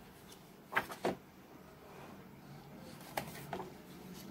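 Pages of a hardcover comic book being turned by hand: short crisp paper flips, a pair about a second in and another pair a little after three seconds.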